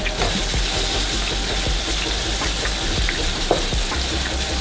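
Ground beef and lamb kabob mixture sizzling in hot oil in a non-stick frying pan: a steady hiss with small scattered crackles.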